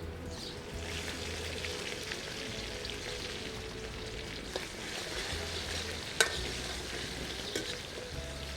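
Food frying and sizzling in a cooking pan, a steady hiss, with a few light utensil knocks and one sharp clink about six seconds in.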